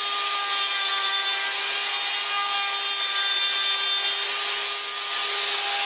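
A router running at speed on a pantorouter, its bit cutting a triple tenon in wood stock: a steady high whine over a rasping cutting noise, the tones shifting slightly as the bit takes wood.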